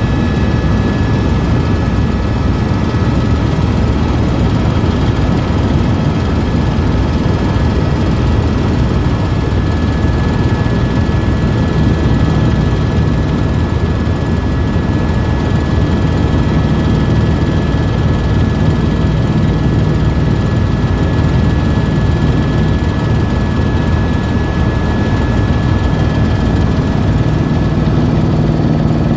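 Tour helicopter in steady flight, heard from aboard: a loud, even rotor and engine rumble with a thin steady high whine above it.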